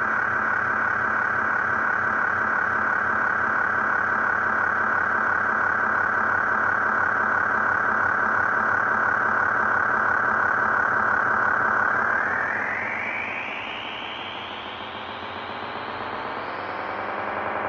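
Experimental ambient electronic music: a steady, whistle-like synthesized drone over a fast rattling texture. About two-thirds through, it glides slowly upward in pitch and grows quieter, then swells again near the end.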